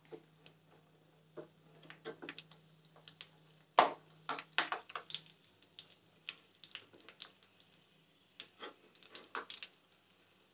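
Metal spoon clinking and scraping against a small steel strainer as peanuts are stirred and turned over in hot oil: irregular light clicks and rattles, with one sharper knock about four seconds in.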